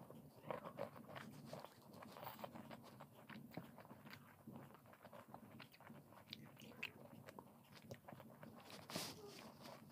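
Faint close-up mouth sounds of a person chewing syrupy jalebi, with many small, irregular clicks.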